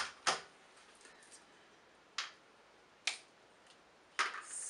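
Snow crab leg shells being cracked and snapped apart by hand: about five short, sharp cracks spaced out over several seconds, the last followed by a brief scraping hiss.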